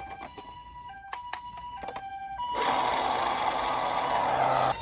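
Japanese ambulance two-tone 'pi-po' siren, alternating between a higher and a lower steady tone about every half second. About two and a half seconds in, a loud rushing noise rises and mostly drowns it out.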